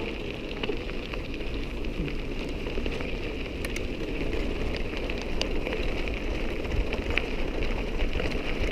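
Steady crackling hiss of bicycle tyres rolling over a dirt and gravel track, with wind rumbling on the microphone and scattered small ticks.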